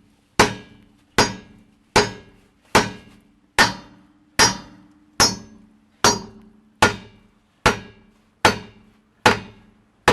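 A big hammer pounding steadily on a rusted, stuck metal part, about one heavy blow every 0.8 s, each strike ringing metallically.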